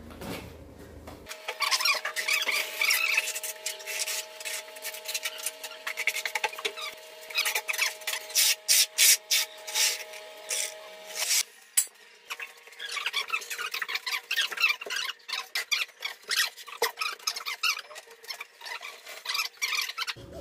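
Quick, repeated scraping and squeaking strokes of a trowel working cement-based tile adhesive (Bondex), with a short lull about halfway through.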